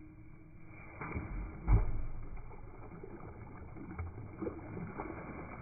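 Several muffled thumps and knocks over a low rumble, the loudest about two seconds in.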